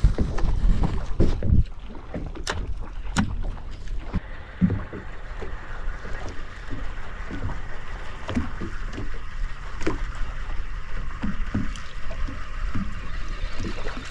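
Small waves slapping against the hull of a drifting boat, with wind on the microphone and a few sharp knocks. A fishing reel is wound in fast, a faint steady whir after about four seconds.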